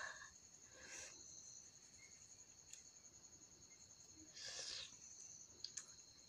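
Faint, steady trilling of crickets, with a short bite-and-chew noise about a second in and a longer one about four and a half seconds in, and a few small clicks near the end.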